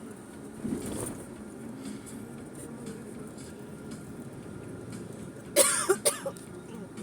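A person coughing, a short run of two or three sharp coughs about five and a half seconds in, over the steady low rumble of a car cabin on the move.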